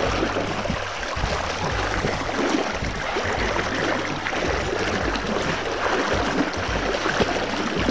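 Shallow rocky stream rushing steadily over stones and around a scoop net held in the current, with a low rumble underneath.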